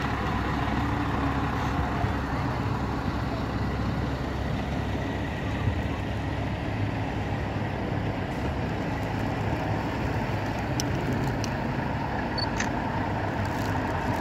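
Scania T-cab truck's V8 diesel engine running steadily at low revs as the tractor unit pulls its trailer slowly past.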